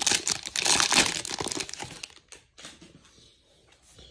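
Foil wrapper of a jumbo pack of baseball cards crinkling as it is pulled open, dense and loud for about two seconds, then dying down to faint handling noise.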